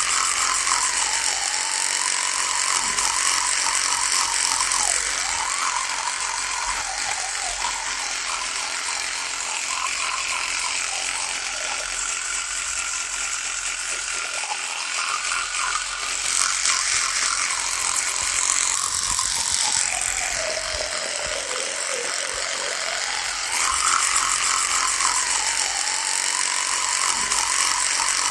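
Electric toothbrush running, a steady high buzz. Its pitch wavers throughout and sags noticeably about three quarters of the way through before climbing back; it is louder at the start and again near the end.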